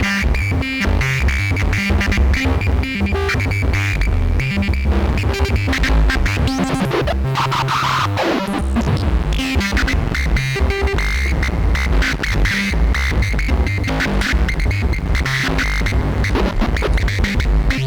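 Analogue synth voice run through a Djupviks Mörser stereo Wasp-style filter, its cutoff modulated by the filter's clocked digital noise, giving a gritty, glitchy stutter over fast-stepping low notes. A resonant ring sits high above the notes.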